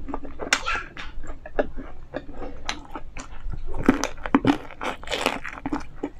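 Close-miked biting and chewing of crispy fried chicken: a run of sharp crunches and crackles from the fried coating, thickest about four to five seconds in.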